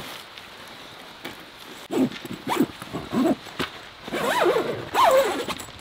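A cloth shelter wall being pulled and stretched by hand over its poles. The fabric rasps and gives a run of short squeaks that rise and fall in pitch, starting about two seconds in and loudest near the end.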